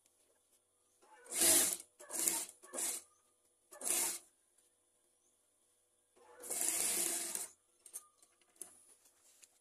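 Industrial sewing machine stitching a shirt collar in short stop-and-go runs: four brief bursts in the first half, then a longer run of about a second and a half.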